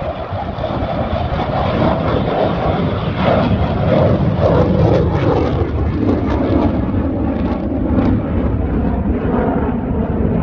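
Military jet engines running, a loud steady rumble, as a formation of demonstration jets gets under way for takeoff.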